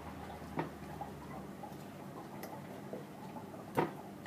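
Metal fork clicking against a stainless steel saucepan a few times, with the sharpest click near the end.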